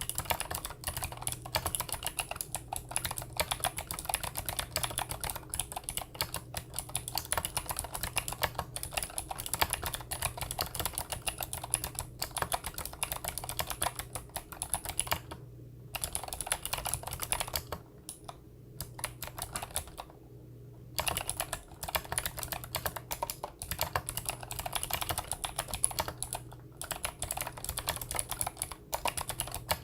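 Fast, continuous typing on a Monstargear NINJA87 mechanical keyboard with clicky Gateron Blue switches, each keystroke a sharp click. Typing stops for a few short pauses a little past the middle.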